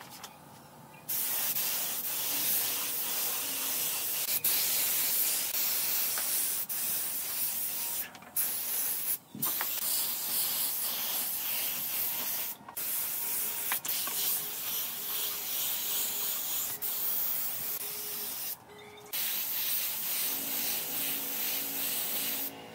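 Compressed air hissing from a hand-held air gun on a coiled air hose, in long blasts with a few brief breaks. It starts about a second in.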